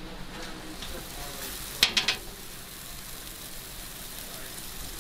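Jerk pork and chicken sizzling on the grate of a charcoal barrel grill, a steady hiss. About two seconds in comes a brief clatter of three sharp clacks.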